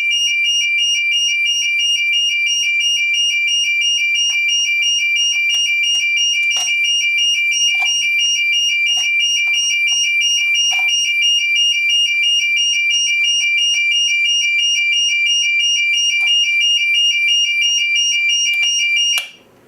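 Fire alarm sounder set off by a manual call point under test, sounding a loud, continuous high-pitched electronic alarm tone that cuts off abruptly near the end as the system is reset.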